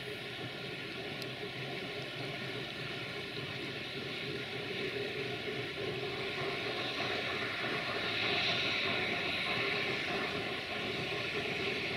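Steady hum of a multirotor camera drone's propellers, with a hissier noise growing louder from about seven seconds in.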